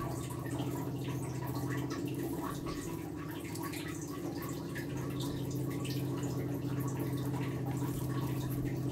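Steady low hum with faint soft squishing and small clicks as hands pinch off and roll ground chicken cutlet mixture into balls on a steel plate.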